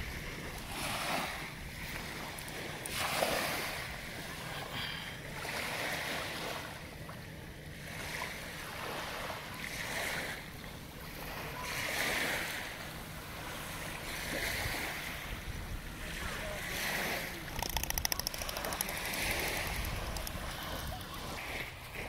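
Small waves lapping at a sandy shoreline, a soft wash every couple of seconds, over a steady low wind rumble on the microphone.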